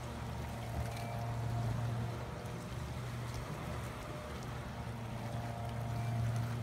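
Motorboat engine running steadily at speed on the unmanned, circling boat, its drone swelling louder about two seconds in and again near the end as the boat passes nearer.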